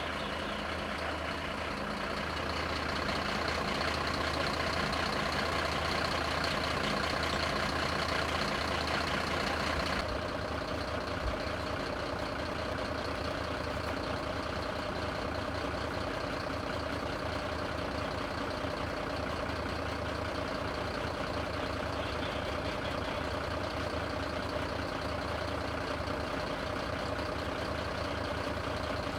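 Heavy truck's diesel engine running steadily with a constant hum and hiss, the tone shifting abruptly about ten seconds in.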